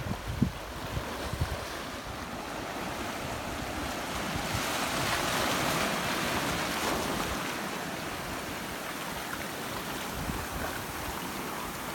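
Ocean water washing and sloshing, with a surge of surf swelling louder for a few seconds mid-way and then settling. A few low thumps near the start.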